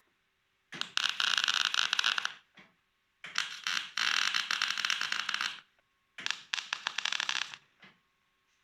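Three bursts of harsh, scratchy scraping, each one to two seconds long, with abrupt cuts to silence between them.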